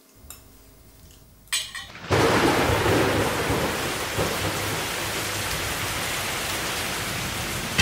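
Heavy rain and wind of a thunderstorm, setting in suddenly about two seconds in and then running steadily.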